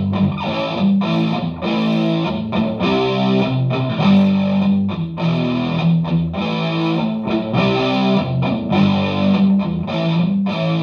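Electric guitar (a Vintage V100 Les Paul copy) played through a custom distortion patch on a DigiTech GNX3 multi-effects pedal into an H&K Attax amp. It plays a rhythmic riff of heavily distorted chords broken by short stops.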